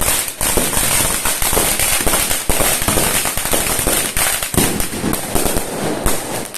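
Fireworks and firecrackers going off in a dense, continuous barrage: many overlapping cracks and bangs with no pause between them.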